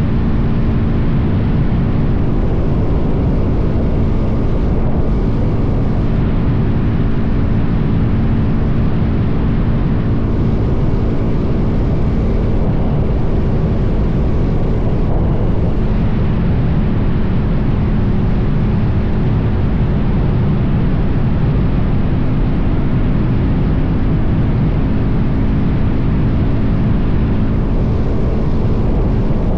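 Suzuki DRZ400's single-cylinder four-stroke engine running at a steady cruising speed, under heavy wind rush on the microphone.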